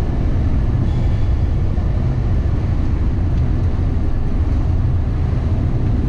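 Steady low rumble of a car on the move, heard from inside the cabin: tyre and engine noise on a snow-covered road.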